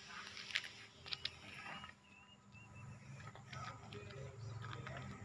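Faint outdoor background: scattered light clicks and taps, a few short high chirps about two to three seconds in, and a faint low steady hum.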